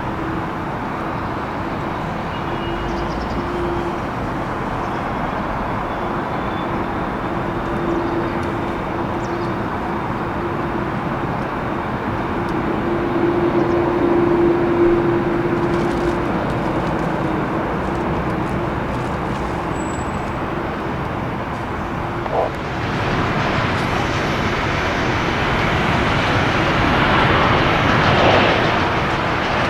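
Jet airliner engines heard at a distance as a steady rumble with a faint hum. In the last several seconds the sound grows louder and brighter as the aircraft nears.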